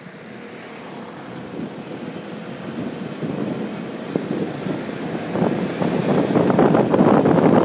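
Wind buffeting a microphone mounted on a 4WD's front bullbar as the vehicle pulls away and gathers speed, the gusty rush growing steadily louder and strongest near the end.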